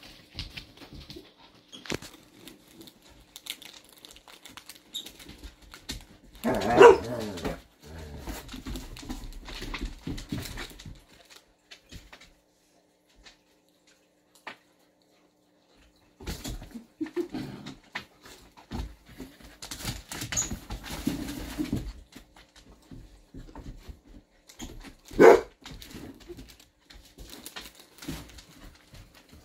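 Akitas and a spotted dog playing on a wooden floor, scuffling with clicking claws. One dog barks loudly about seven seconds in and gives another short, sharp bark near the end, with a few quiet seconds in the middle.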